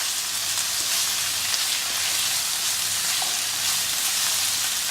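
Onions and tomatoes frying in a pan, a steady sizzle as they roast down for a bhuna masala.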